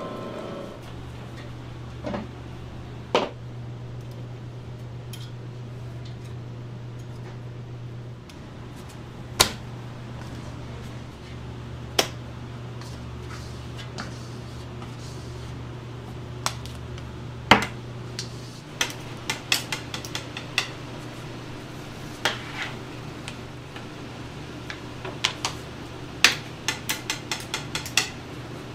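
Knocks and clinks of metal kitchen tools against a steel bowl and a plastic cutting board as fish cake paste is handled and cut, over a steady low hum. Single sharp knocks come now and then, and quick runs of taps come in the second half.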